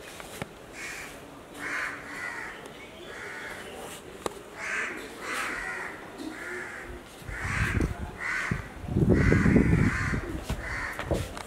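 Crows cawing over and over, one harsh call about every half second to second. A loud low rumble comes in over the calls in the last few seconds.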